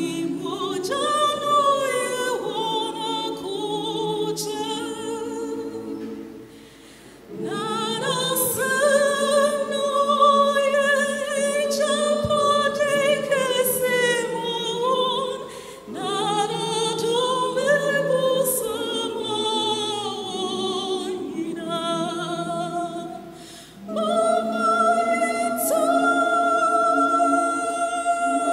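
Choir singing a choral piece in parts, in long phrases with brief pauses about 7, 16 and 24 seconds in.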